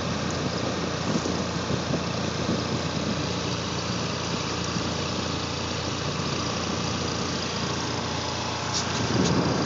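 Steady engine rumble mixed with a broad hiss, a little louder with a few faint clicks near the end.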